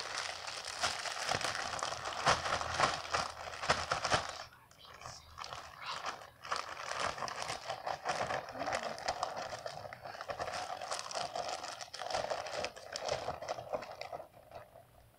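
A clear plastic bag crinkling and rustling as hands squeeze and pull a glob of homemade slime out of it. It is loudest for the first four seconds and softer after that.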